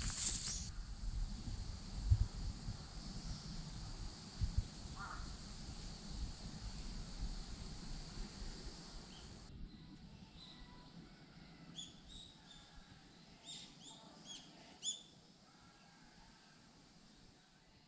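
Faint outdoor ambience. For the first half a steady high-pitched insect drone runs over a low rumble. It breaks off abruptly, and scattered short bird calls follow.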